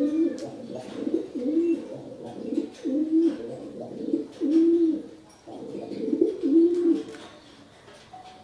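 Pigeon cooing over and over, a low coo about once a second, stopping about seven seconds in, with faint light clicks alongside.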